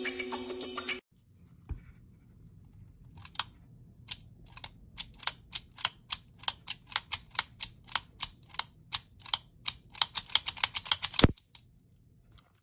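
Taurus Model 82 .38 Special revolver's action being worked by hand: a run of sharp metallic clicks that start sparse and quicken to about three or four a second, ending with one louder click near the end.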